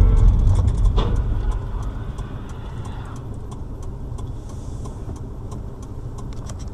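Car engine and road noise heard from inside the cabin, a dense low rumble that is loudest in the first second or so and then settles to a steady lower level.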